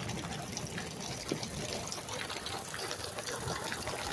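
Heavy rain from a squall line falling steadily, with many close drops striking in short ticks and a gushing of running water.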